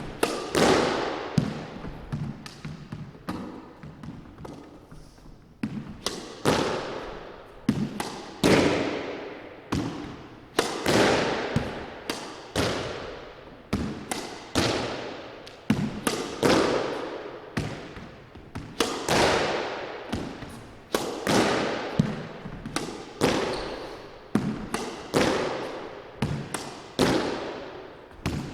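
A squash ball being hit repeatedly in a solo drill: sharp racket strikes and wall hits about every half second to a second, each ringing on in the court's echo. The hitting eases off briefly about four seconds in, then picks up again.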